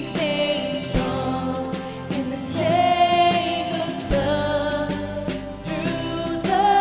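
A worship song: voices singing held, wavering notes over instrumental accompaniment.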